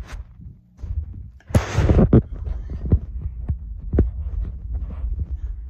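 Bedding rustling and a handheld phone's microphone being knocked about while a bed is made: irregular low thumps and knocks, with a louder burst of rustling about a second and a half in.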